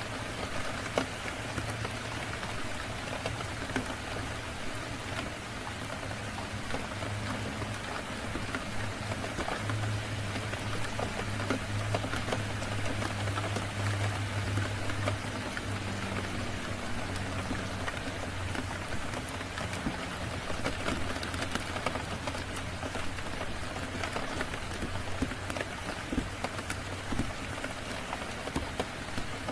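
Steady rain falling, mixed with a crackling fire: an even hiss of rain with scattered sharp pops and a low hum that swells in the middle and eases off again.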